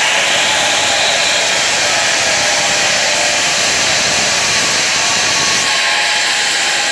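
Steady, loud rushing noise with no distinct bangs or pops.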